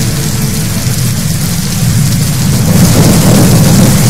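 Heavy rain with a continuous low thunder rumble, swelling louder about three seconds in.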